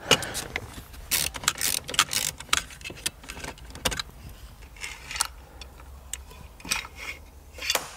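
Irregular metallic clicks, clinks and rattles as the parking brake lever assembly of a BMW E36 is worked loose and lifted out of the centre console, busiest in the first two seconds and again near the end.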